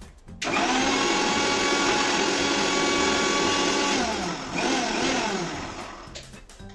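Electric mixer grinder blending liquid in its jar at full speed for about three and a half seconds, then switched off, given one short extra pulse, and spinning down with a falling whine.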